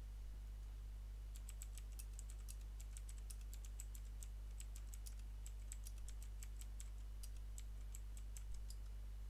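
Computer keyboard typing: a run of quick key clicks that starts about a second and a half in and stops near the end, over a steady low hum.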